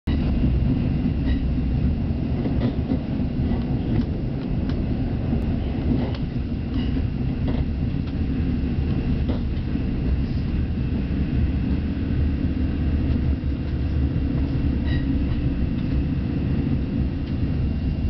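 Amtrak Cascades passenger train running along the track, heard from inside the coach: a steady low rumble with faint scattered clicks.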